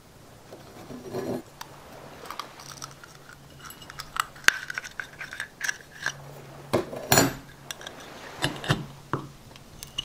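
Oyster being shucked: a blade scraping and clicking against the hard shell as it is worked open. It comes as a scattered series of sharp clicks and short scrapes, the loudest cluster about seven seconds in.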